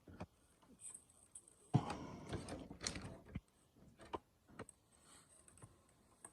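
Scattered clicks and knocks of hands working at the packaging tie-downs holding the RC monster truck's suspension, with a louder rustling scrape from about two to three and a half seconds in.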